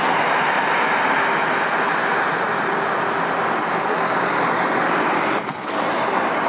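Airbus A320neo jet engines at high thrust during a go-around, a steady loud rushing noise with a brief dip about five and a half seconds in.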